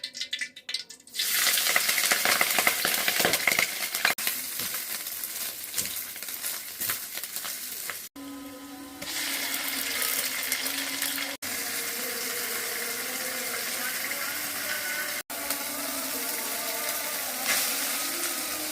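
Home kitchen cooking sounds: a steady hiss, cut short and restarting several times.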